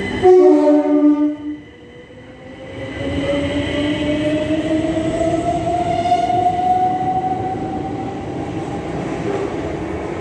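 A train horn sounds two tones together for about a second. Then a Southern Class 377 electric multiple unit pulls away from the platform, its traction motors whining in a pitch that rises steadily as it gathers speed.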